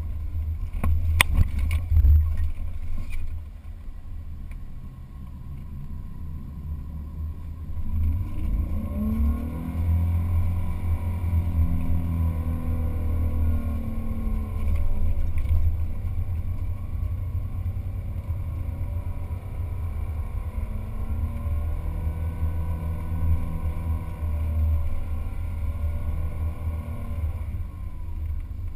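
Jeep Wrangler engine revving up and down as it drives through soft dune sand, under a heavy low wind rumble on a hood-mounted microphone. A quick cluster of sharp knocks comes about a second in.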